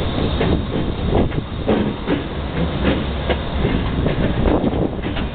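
CSX diesel locomotive passing close by: a steady low engine rumble with irregular knocks and wheel clatter from the rails.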